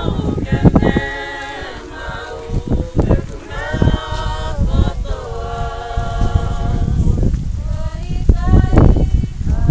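A group of voices singing together unaccompanied in long held notes, with wind buffeting and rumbling on the microphone.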